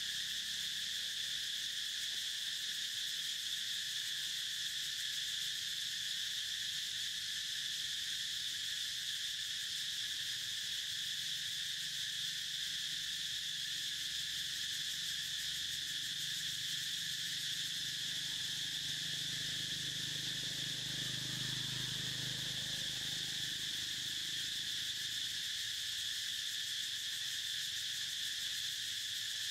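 A steady chorus of insects: a continuous high-pitched drone that holds at the same level throughout.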